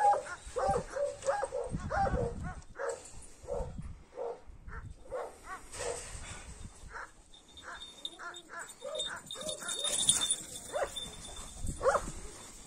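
Kangal shepherd dog barking in a long series of short barks, about two or three a second, spacing out in the second half.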